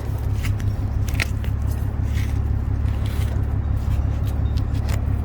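Weeds being pulled from potting soil by hand: scattered crackling, rustling and scraping of stems, leaves and soil. Under it runs a steady low motor hum.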